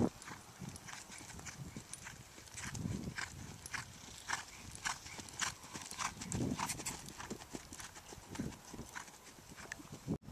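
Hoofbeats of a Holsteiner gelding cantering on a lunge line over dry, dusty ground, coming as short thuds about twice a second. Two low, muffled sounds come about three seconds in and again at about six and a half seconds.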